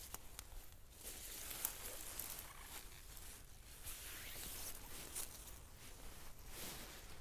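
Rustling of leaves and undergrowth with scattered small snaps and clicks, like footsteps and hands working through forest plants.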